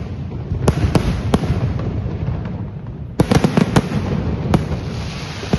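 Fireworks going off: sharp bangs, a few spaced ones early and then a rapid cluster of about six about three seconds in, over a continuous rumbling background.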